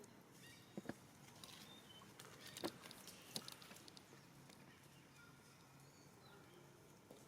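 Faint outdoor background with a few short clicks and taps, the loudest about two and a half seconds in, and faint high chirps.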